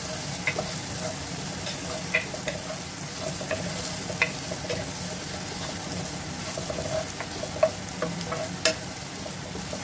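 Chopped onion and garlic sizzling in oil in a non-stick pot as they are sautéed, with a spatula stirring and scraping through them and a few sharp ticks of the spatula against the pan.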